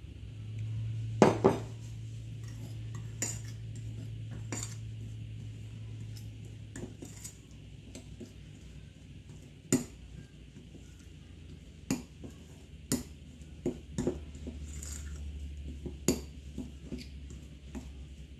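Metal fork stirring a crumbly mix of flour, sugar and melted butter in a ceramic bowl. Soft scraping with sharp clinks of the fork against the bowl every second or so, the loudest about a second in.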